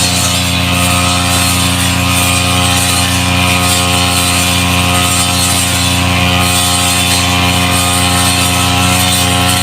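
Brush cutter engine running steadily at a constant speed, an even, unbroken engine note.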